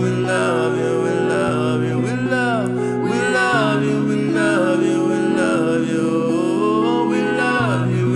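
Slow worship music: a wordless singing voice gliding up and down over held, sustained chords that change every couple of seconds.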